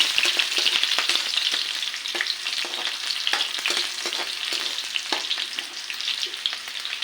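Garlic and onions sizzling in hot cooking oil in a pan as they are stirred, with scattered short clicks and scrapes from the stirring.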